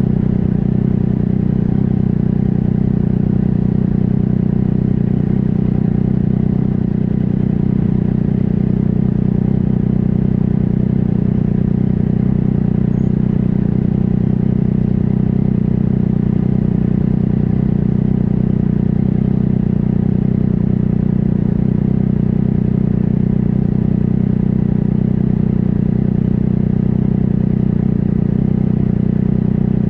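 Motorcycle engine idling steadily at a standstill, heard close up from a camera on the bike's tail; an even low hum with no revving.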